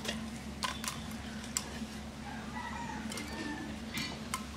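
Eggshells clicking and crackling as hard-boiled eggs are peeled by hand over a steel plate, a few scattered clicks. A chicken calls faintly in the background over a steady low hum.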